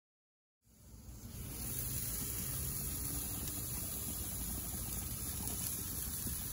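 Burger patties sizzling on the grates of a gas grill over lit burners: a steady hiss that fades in within the first second or two.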